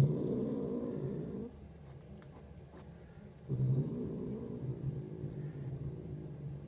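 A cat's low rumble close to the microphone, in two long stretches: one of about a second and a half, then after a pause of about two seconds, another of about three seconds.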